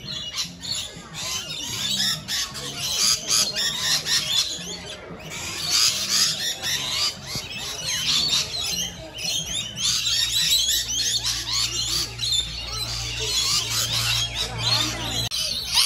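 A flock of rainbow lorikeets screeching and chattering, a dense, unbroken chorus of shrill, overlapping calls.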